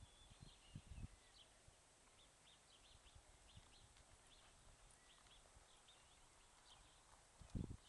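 Faint hoofbeats of a horse cantering on soft arena dirt, a few thuds in the first second and a louder cluster near the end, with small birds chirping faintly throughout.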